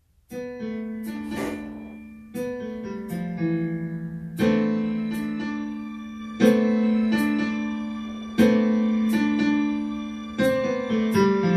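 Slow electric piano music: a chord struck about every two seconds and left to fade, with a few lighter notes in between.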